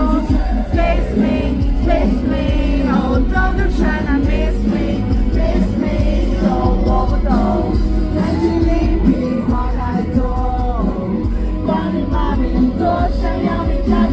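Live pop music: singing over an amplified band with a strong, steady bass.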